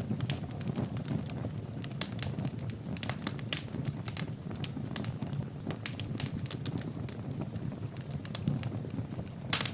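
Wood fire burning in a fireplace: a steady low rumble of flames with frequent sharp crackles and pops from the burning logs, and one louder pop near the end.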